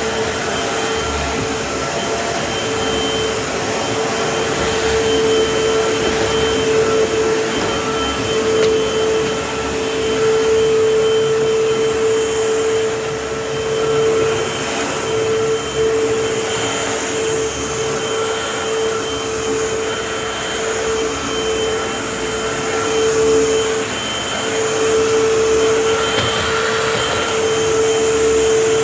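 Vacuum cleaner running steadily, its motor giving a constant whine over the rush of air.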